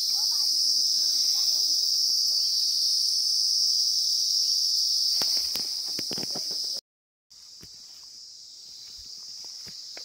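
Steady high-pitched insect chorus, with a faint murmur of voices at first and a spell of rustling and sharp handling knocks among the plants around five to six seconds in. The sound cuts out for a moment about seven seconds in and returns quieter.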